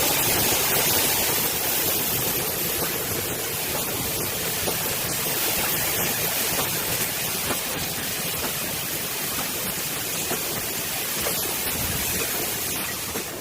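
Automatic panel welding machine running: a steady, loud hiss with faint crackle, easing off near the end.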